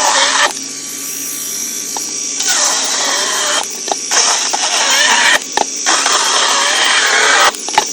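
Worx 20-volt cordless electric chainsaw cutting through degraded northern red oak. The chain bites in several rough strokes of a second or so, with the motor whirring more lightly between them.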